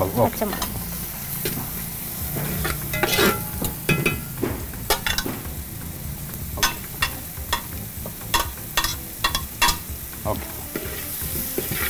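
Chopped onions and green chillies frying in hot oil in a pan, sizzling steadily while they are stirred. The stirring utensil clicks and scrapes against the pan many times at an irregular pace.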